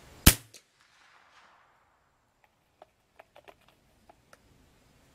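A single shot from an old Winchester .22 LR rifle: one sharp crack about a quarter second in, its echo dying away over the next second, followed by a few faint clicks.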